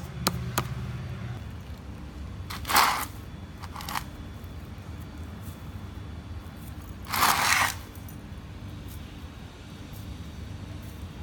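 Two short scraping rustles, one about two and a half seconds in and a longer one about seven seconds in, from hands working a sticky bait mash and shifting its plastic bowl on a concrete floor, over a low steady background rumble.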